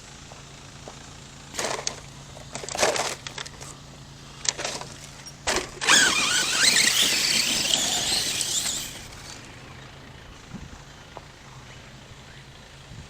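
ARRMA Kraton 6S RC truck's brushless electric motor whining in a few short throttle bursts, then a longer run of about three seconds with the whine rising and falling over the hiss of the tyres churning dirt.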